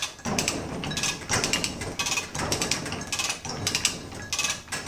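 Hand chain hoist (a Yale 3/4-ton chain fall) being pulled hand over hand, its chain and ratchet rattling and clicking in repeated bursts, one with each pull, as it lifts an outboard powerhead.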